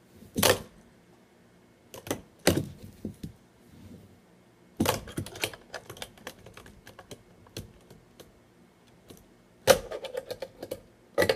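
Tech Deck fingerboard clacking and clattering against the tabletop and the ramp and stair-rail set as it is flicked through tricks: sharp hard plastic clacks in scattered bursts, with a quick cluster about five seconds in and another near the end.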